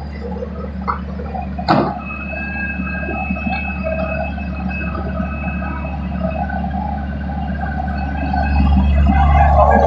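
Heavy construction machinery running: a steady low engine drone with a thin whine over it, a sharp knock about two seconds in, and a rise in level near the end.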